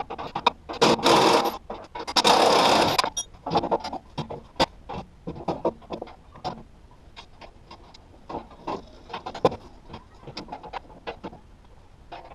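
Two short bursts of a handheld cordless power driver running in bolts, about a second in and again a moment later, followed by scattered clicks and clinks of metal parts and tools being handled.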